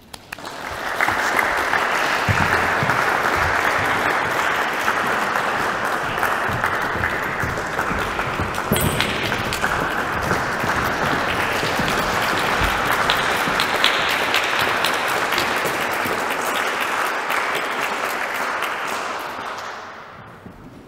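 Audience applauding steadily, building quickly about a second in and dying away near the end.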